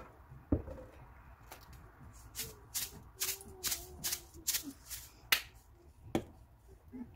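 Wooden chopsticks beating eggs and milk in a stainless steel bowl, clicking against the metal in a run of sharp taps, about two or three a second, with a louder knock near the end.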